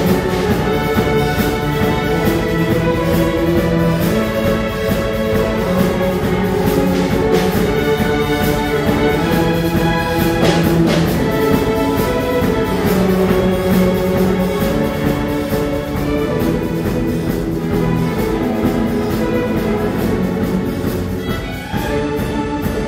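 Orchestral music with long held notes.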